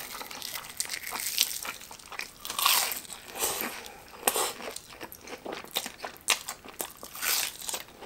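Close-up mouth sounds of biting into and chewing a crispy, deep-fried breaded katsu cutlet filled with mozzarella, with repeated crunches of the breaded crust.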